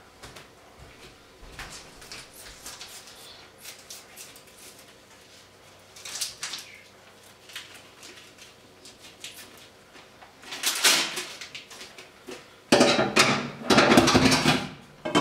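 Kitchen handling noises as a plastic food package is opened: light clicks and rustling, then louder rustling and clatter for a couple of seconds near the end.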